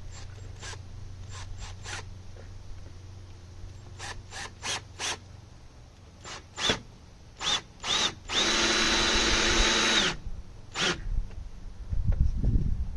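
Cordless drill-driver with a PZ2 bit driving a long screw into a wooden board, run in a series of short pulses. Near the end comes one steady whining run of about a second and a half, followed by a last short pulse.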